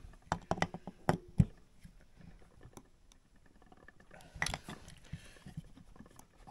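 Sharp metal clicks and knocks from a seal puller and hand tools working on a single-cylinder snowmobile engine's crankshaft seals, in two short clusters: one near the start and another around four and a half seconds in.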